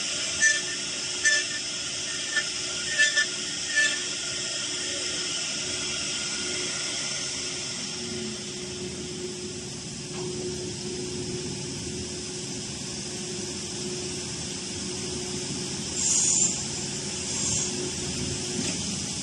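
Woodworking CNC machine with a saw blade and four spindles running steadily with a constant hum, with a quick series of sharp clicks in the first few seconds. About sixteen seconds in there is a short hiss, followed by a fainter one.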